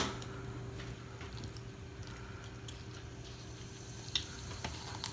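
Kitchen shears snipping through a raw chicken's backbone: one sharp snip at the start, then a few faint clicks about four seconds in, over a low steady room hum.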